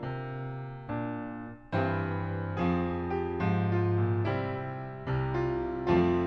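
Solo piano music: chords struck one after another, each ringing and then fading.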